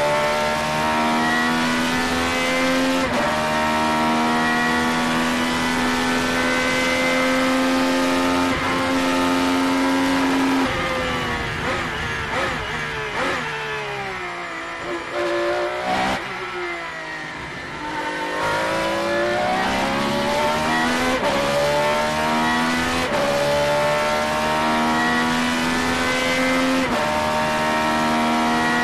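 Ferrari 333SP's 4.0-litre naturally aspirated V12 heard from the cockpit, running at high revs through upshifts. About eleven seconds in the revs fall away in steps as it brakes and shifts down, with quick blips, run low and quieter for a few seconds through a slow corner, then climb again through the gears.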